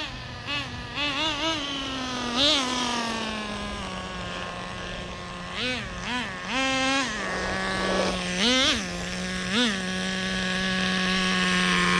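Nitro RC car's small two-stroke glow engine idling with a high buzz, blipped briefly on the throttle about eight times, during break-in after a fresh glow plug.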